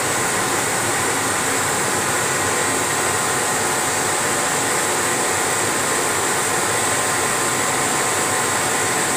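CNC laser engraving machine running while it engraves a wooden sheet: a steady noise with faint steady tones in it.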